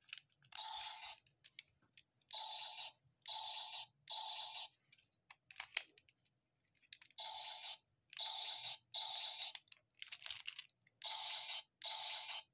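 Power Rangers Dino Thunder Brachio Staff toy playing its electronic sound effect through its small speaker: a crackly, hissing burst about half a second long, repeated in quick groups of three or four, with small plastic clicks of the toy being handled in between.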